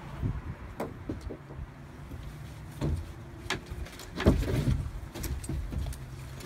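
Knocks, thumps and rustling of firefighters' turnout gear and webbing as a downed firefighter is hauled up onto a wooden platform, with the heaviest thump a little past the middle. A low steady hum runs underneath.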